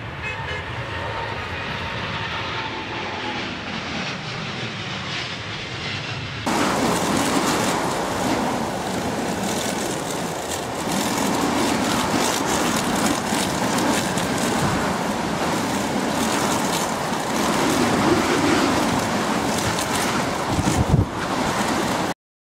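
Jet airliner engines heard as a continuous rushing noise as the aircraft lands in a strong crosswind, first a Boeing 787, then a Boeing 757. About six and a half seconds in the sound changes suddenly to a louder, brighter recording. It stops abruptly just before the end.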